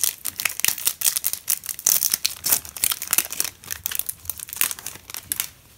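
Foil booster pack wrapper crinkling as it is torn open by hand: a dense run of sharp crackles that dies away near the end.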